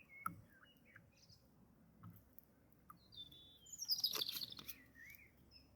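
Wild birds chirping: short whistled chirps and pitch glides, with a busier flurry of song about four seconds in.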